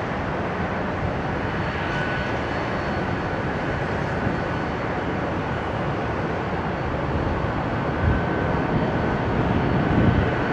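Boeing 777 twin-engine airliner's jet engines on final approach at low power, a steady rushing rumble that grows a little louder near the end as the plane comes closer.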